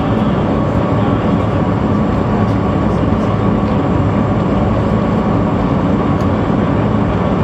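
Cabin noise of a Brødrene Aa 42 m high-speed catamaran ferry cruising at 41 knots: a loud, steady low drone of the engines mixed with the rush of the hull through the water.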